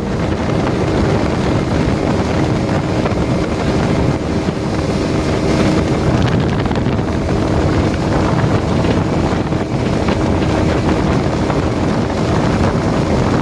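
Outboard motor of a speedboat running steadily at high speed, with wind buffeting the microphone and water rushing past the hull.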